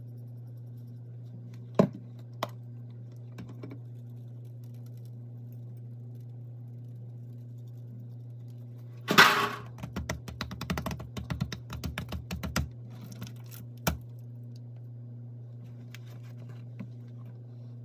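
Spice shakers rattling as seasoning rub is shaken onto a pork butt: two sharp clicks about two seconds in, then about three and a half seconds of quick rattling from near the middle, and a single knock a little later.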